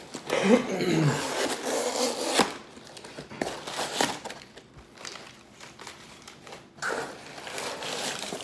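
Crumpled packing paper rustling and crinkling as it is pulled out of a cardboard shipping box by hand, with a few sharp knocks of hands and flaps against the box around the middle.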